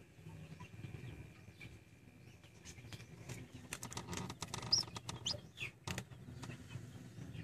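Hatching chicken chick peeping a few short, high peeps about halfway through, among scattered small clicks, over a low steady hum inside the incubator.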